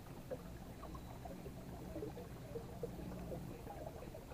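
Water gurgling and lapping against the hull of a small boat on a fast-flowing river, with many small irregular splashes over a low steady hum.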